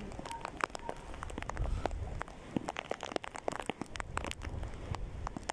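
Heavy rain, its drops striking close to the microphone in many irregular sharp ticks over a low rumble.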